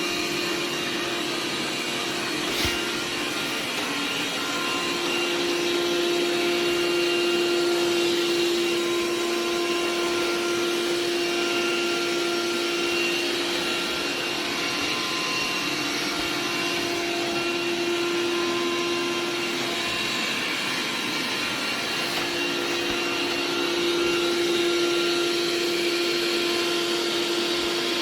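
Xiaomi Robot Vacuum X20 Pro running, with a steady whooshing fan noise. A low steady hum drops away for several seconds around the middle and then comes back.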